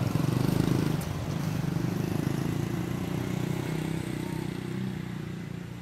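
A motor vehicle engine running with a steady low rumble that slowly fades near the end.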